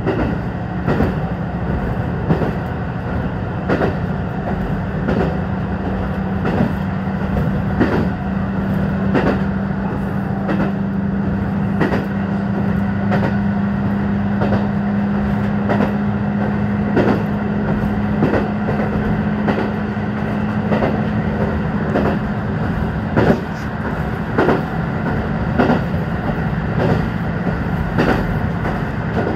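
JR Hokkaido KiHa 150 diesel railcar running along the line, seen from the cab: a steady diesel engine drone that rises slightly in pitch. Over it come regular sharp clacks of the wheels passing over rail joints, about one a second.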